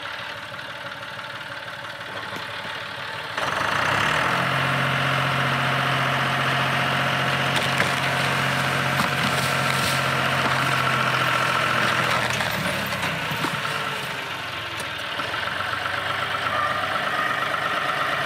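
A John Deere loader tractor's diesel engine idles, then revs up about three seconds in and pulls hard under load as a chain drags a big broken oak tree down. The tree cracks and crashes to the ground around the middle. The engine eases off, then picks up again near the end.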